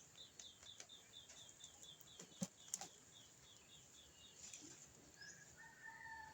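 Faint bird calls: a rapid run of short high chirps, about five or six a second, over the first few seconds, then a couple of longer whistled notes near the end. Two brief knocks about halfway through.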